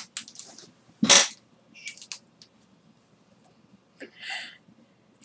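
Foil Pokémon booster pack crinkling and clicking as it is handled and torn open, in short scattered bursts, with a louder one about a second in and a hissy rustle about four seconds in.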